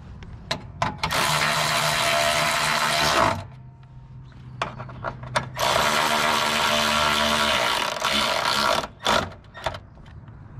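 A cordless power tool driving a socket runs twice, for about two and then three seconds, spinning down the bolts that hold the radiator's upper mounting bracket. Short clicks and knocks of handling come between and after the runs.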